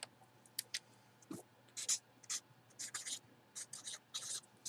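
Faint, scattered short rustles and scratches of hands handling items on a table, about a dozen brief strokes.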